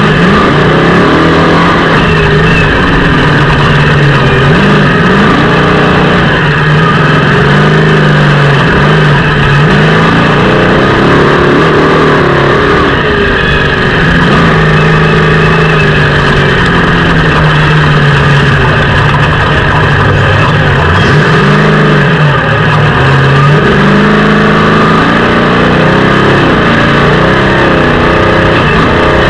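Off-road race car engine running loud and hard, its pitch rising and falling over and over as the throttle opens and closes.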